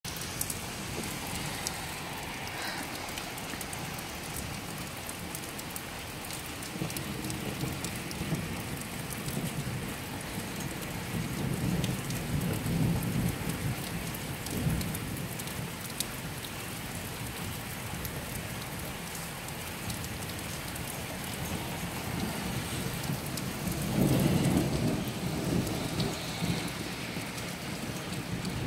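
Steady heavy rain with low thunder rumbling, which swells twice: around the middle and again near the end.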